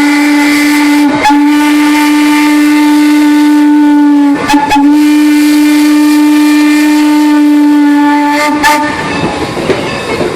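Steam locomotive whistle blown loud and steady in three long blasts, with a very short break a little over a second in and a slightly longer one around the middle. It stops about a second and a half before the end.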